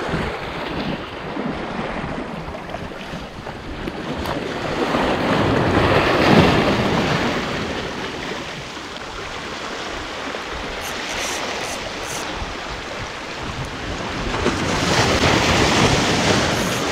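Sea waves washing against a rocky shore, swelling twice: about six seconds in and again near the end, with wind buffeting the microphone.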